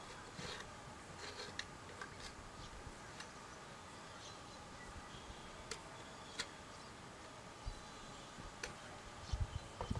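Faint, scattered ticks and scrapes of a hand knife shaving a small piece of wood, a few seconds apart, over a faint steady background hum.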